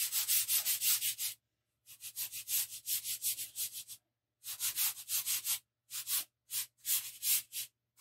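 Fingers and palm rubbing chalk into paper to blend and smooth it: quick scratchy back-and-forth strokes in short runs, with brief pauses.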